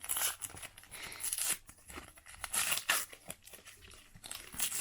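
Foil trading-card pack being torn open, its wrapper crinkling in several short bursts of tearing.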